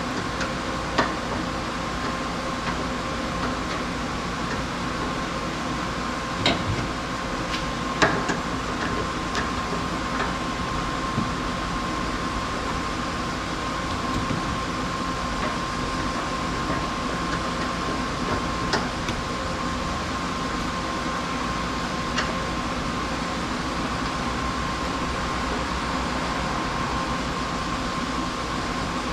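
Steady machine hum with a constant high whine, broken by a few short sharp clicks or knocks, the loudest about eight seconds in.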